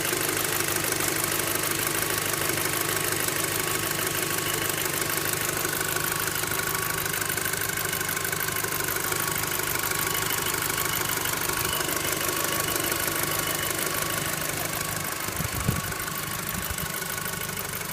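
Volkswagen Golf 5 GTI's 2.0 TFSI four-cylinder engine idling steadily, with a faint bell-like ringing tone and a ticking rattle, the strange noises the owner is trying to pin down. A brief low thump comes near the end.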